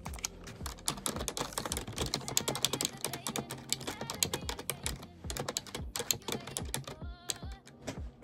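Fast, irregular typing on a computer keyboard: a dense run of key clicks.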